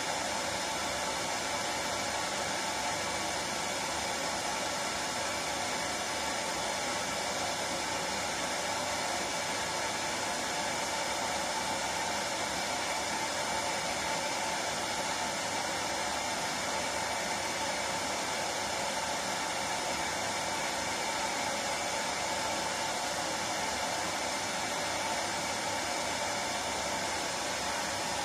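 Hair dryer running steadily: an unbroken rush of blown air over the whine of its motor, used as soothing noise to put a baby to sleep.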